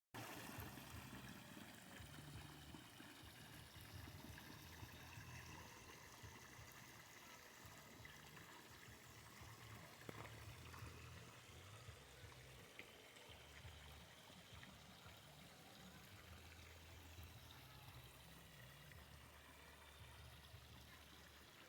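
Faint, steady trickle of running water into a backyard pond, with a single click about ten seconds in.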